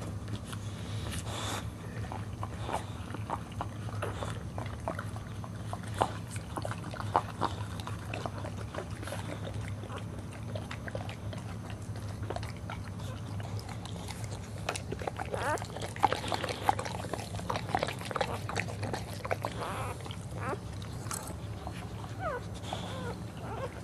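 Boxer mother licking a newborn puppy clean and chewing at its amniotic sac: a run of quick wet licks, smacks and clicks that grows busier past the middle.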